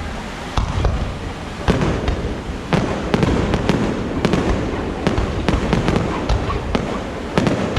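Fireworks display: aerial shells bursting with deep booms about once a second, then a dense run of sharp cracks several per second.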